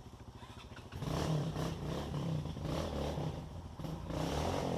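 Trail motorcycle engine idling with an even low beat, then revving up and pulling hard about a second in, its pitch rising and falling as the throttle changes.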